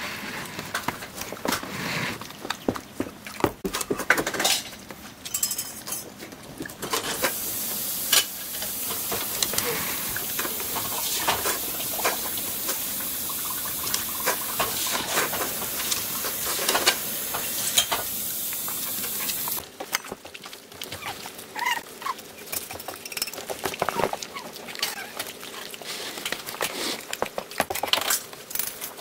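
A dog eating chicken from a pan on the floor: irregular wet chewing and crunching, with clicks and clinks as its teeth and snout knock the pan. A steady hiss comes in about seven seconds in and cuts off suddenly about twenty seconds in.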